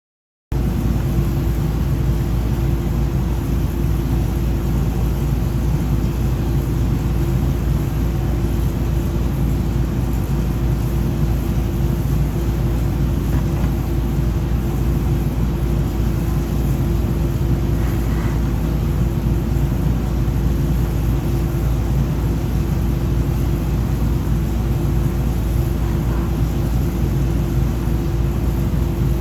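A machine running steadily: a constant low drone with a fixed hum tone, starting abruptly about half a second in and holding unchanged throughout.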